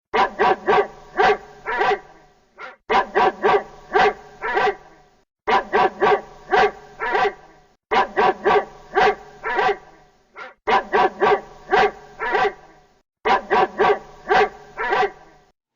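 Dog barking in six runs of about five quick barks each, with short pauses between the runs.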